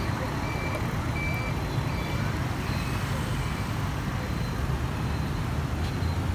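Street traffic with vehicle engines running in a steady low rumble, over which short, high electronic beeps repeat about every two-thirds of a second, like a vehicle's reversing or signal beeper.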